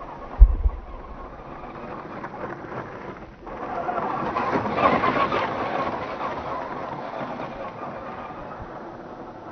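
Tamiya CC-01 Unimog radio-controlled truck driving over loose stones, its electric motor, gears and tyres growing loudest as it passes close about five seconds in, then fading as it drives off. A low thump about half a second in is the loudest moment.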